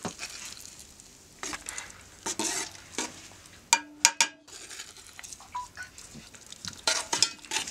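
Metal spoon scraping roux out of a small pan and stirring it into a metal pot of stock: irregular scrapes and clinks of spoon on metal, with a cluster of sharper clinks about halfway through, over a light sizzle.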